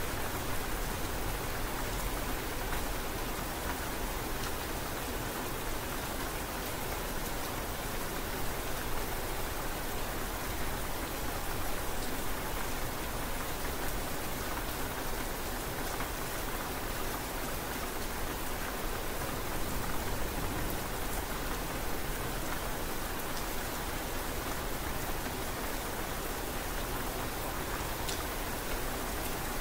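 Steady rain falling: an even hiss with scattered drops ticking through it.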